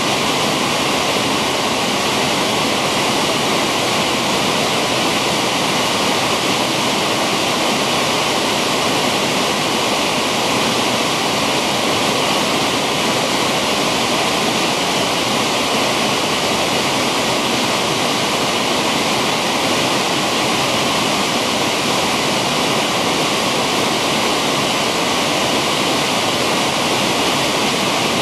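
Loud, steady rush of water from a low waterfall spilling over a rock ledge and tumbling through rapids between large boulders.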